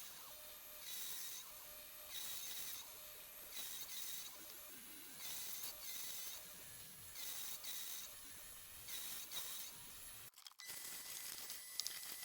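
Metal nut being cut by hand, with repeated rasping cutting strokes about one every second and a half. After a brief gap near the end come a few light clicks.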